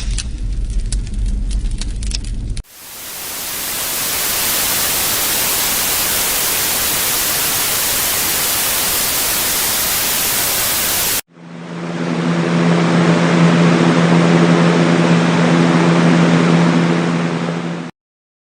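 A white noise sound machine switching between its preset sounds. A low rumble with faint crackles switches, about two and a half seconds in, to a steady full hiss of white noise that fades up. Around eleven seconds in it changes to a duller hiss with a steady low hum, which cuts off near the end.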